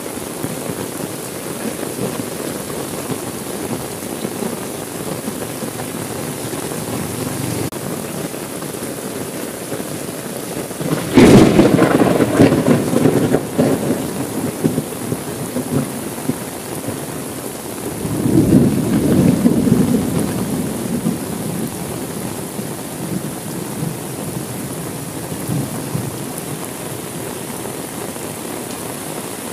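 Steady heavy rain, with a sudden loud thunderclap about eleven seconds in that rumbles on for a few seconds, and a second, softer roll of thunder about a week's-worth of seconds later, around eighteen seconds in.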